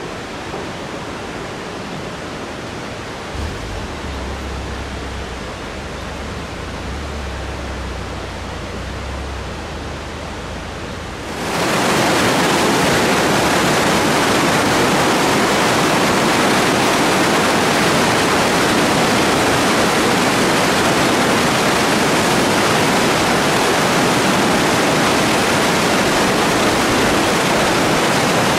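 Steady rush of falling and fast-flowing mountain water from waterfalls and a rocky river. A low rumble sits underneath for several seconds. About a third of the way in, the water sound jumps suddenly louder and fuller and then holds steady.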